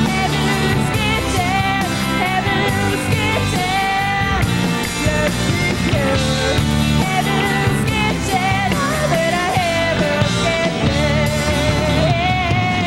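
A rock band playing live, with a woman singing the lead over drums, bass, electric guitar and keyboards.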